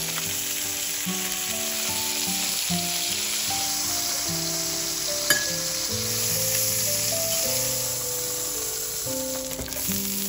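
Chicken breasts sizzling steadily in butter and oil in a frying pan, under soft background music. There is one sharp click about five seconds in.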